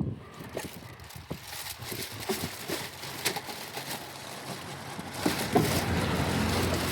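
Scattered light clicks and knocks of engine-bay hoses and fittings being handled, with a steady low hum and louder background noise coming in after about five seconds.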